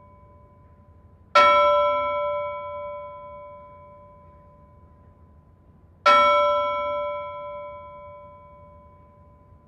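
A bell struck twice, about a second in and again about six seconds in; each strike rings out with several overtones and fades slowly.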